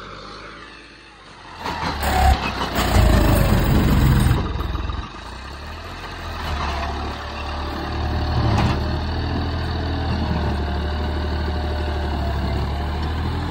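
John Deere 5310 tractor's diesel engine running under load while towing a loaded trolley through mud. It runs louder and rougher for a couple of seconds after the start, then settles into a steady working hum.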